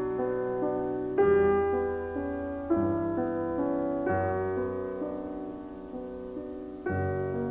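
Background piano music: slow, sustained chords, with a new chord struck about every one and a half to three seconds.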